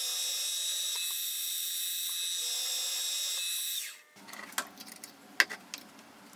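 Milling machine running with a steady high-pitched whine while drilling holes in a mild steel tool holder under flood coolant; the whine falls in pitch and stops about four seconds in. A few faint sharp metallic clicks follow as a tap is turned by hand in a tap wrench to thread the holes.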